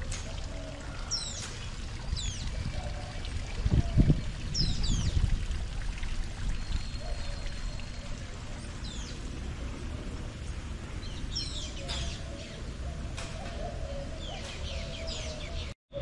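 Birds calling again and again, short high calls that sweep down in pitch every second or two, over a steady background hiss. A low rumble about four seconds in is the loudest moment.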